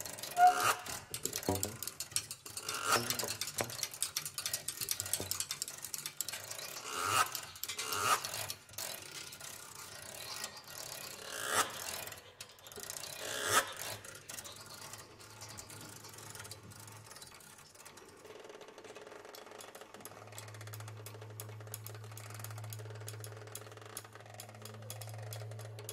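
Free-improvised music for prepared piano, saxophone and tuba played with extended techniques: scattered scraping, clicking and rattling object sounds, with objects worked against the tuba's bell, then a low sustained note held steadily from about twenty seconds in.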